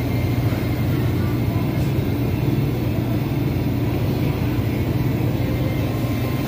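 Steady background noise: a low hum with an even hiss and no distinct events.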